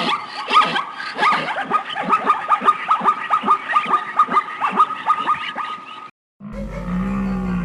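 A dog-like canine yipping rapidly, about four short, falling yelps a second. The yips stop suddenly about six seconds in, and after a brief silence a low, drawn-out animal call begins.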